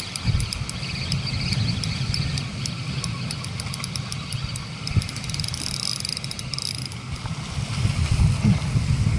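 Spinning reel being wound in, ticking about four times a second, with a brief whir from the reel partway through; the ticking stops near the end. Wind buffets the microphone throughout.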